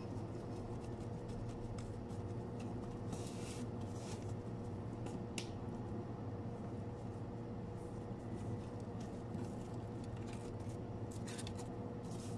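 Gloved hands working sushi rice onto nori sheets, with soft rustles and a few small clicks from the plastic rice tub, a few seconds in and again near the end. A steady low machine hum runs underneath.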